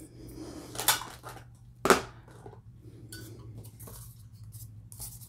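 Handling noises on a craft table: a sharp knock about a second in and a louder one about two seconds in, with light taps and rustling as a cardboard tag and small tools are picked up and set down.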